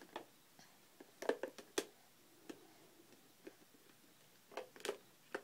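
Light plastic clicks and knocks at irregular intervals, as plastic shape pieces are handled against the slotted lid of a plastic shape-sorter bucket. A few come close together a little after a second in, and again near the end.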